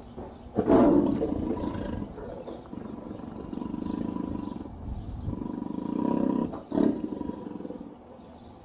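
Tiger vocalizing: a loud roar about half a second in, then a long, low, pulsing rumble, and another short loud roar near seven seconds.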